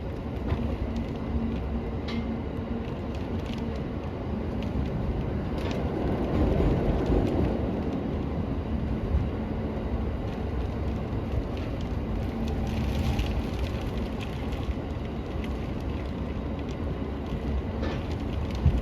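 Inside a JR Musashino Line commuter train running slowly in heavy rain: a steady running rumble with a faint motor hum, and scattered small ticks of rain against the car.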